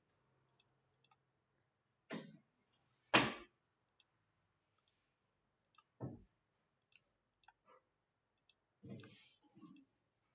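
Scattered computer mouse clicks, with a few louder short knocks: one about two seconds in, the loudest about three seconds in, another about six seconds in, and a rougher rustle-like burst near the end.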